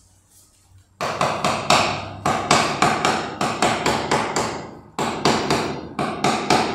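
Rapid hammering on a hard surface, about four sharp ringing blows a second, starting about a second in, with a brief break near five seconds before it resumes.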